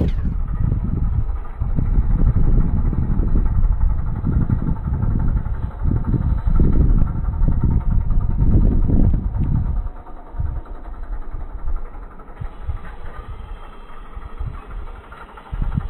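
Massey Ferguson 6475 tractor's diesel engine working under load as it pulls a reversible plough through dry soil. The low, uneven rumble is loud at first and drops off about ten seconds in as the tractor draws away.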